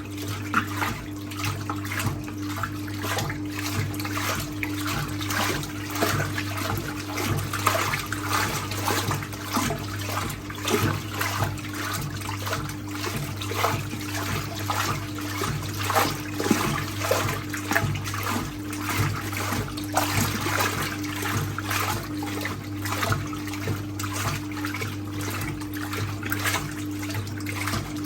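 1958 Hotpoint Empress washing machine running a rinse: its electric motor hums steadily while the washing action churns a load of towels through the water, sloshing continuously.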